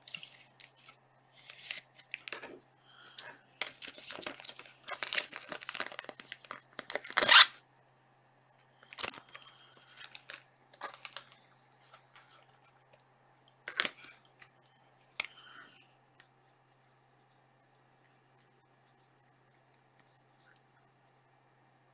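Plastic card sleeve and holder being handled: irregular rustling and crinkling in bursts, loudest about seven seconds in, followed by a few sharp clicks and taps as the card is set down.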